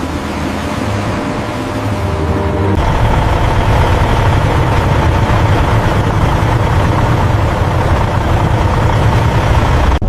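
Heavy machinery engine running with a steady low rumble and a faint constant hum, growing louder about three seconds in.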